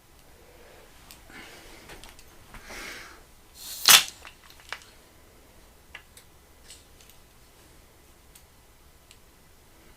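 A nail gun firing once with a sharp crack about four seconds in, after a few seconds of rustling handling noise, followed by several faint scattered clicks.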